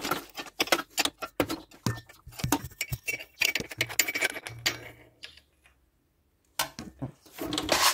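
Metal clicks and clinks of a 17 mm wrench being worked against a moped engine's cap, a quick irregular run of ticks that stops about five seconds in, then a few more clicks near the end.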